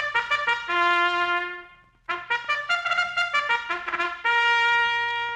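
Brass fanfare led by trumpets opening a 1946 radio broadcast. It plays two phrases of quick, short notes, each ending on a long held note; the first dies away about two seconds in and the second follows at once.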